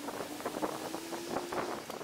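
Rustling and crackling of a nylon hammock tarp and its snakeskin sleeve being handled at the ridgeline, in many short clicks. A steady low hum runs underneath and fades out near the end.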